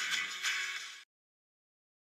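The end of the outro music, fading and then cutting off to dead silence about a second in.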